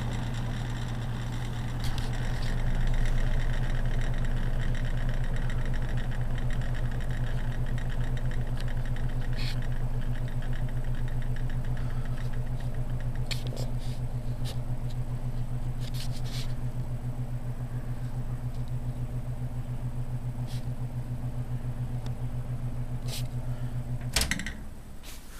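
Old Signal box fan's electric motor running on its low setting, a steady hum with a few faint ticks. Its motor is the one that barely runs on low and has needed a push by hand to start. Near the end a click, and the hum cuts off.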